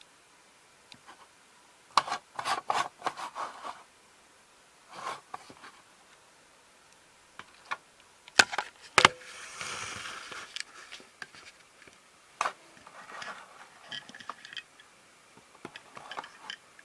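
Handling noise of small hard objects: a quick run of light clicks and taps, two sharp loud clicks a little past the middle followed by a brief rustle, then scattered lighter clicks.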